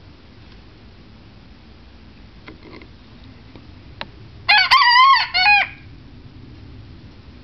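Seven-week-old Old English Game cockerel crowing once, about four and a half seconds in: a short crow of about a second, broken into three or four parts. It is among his first crows.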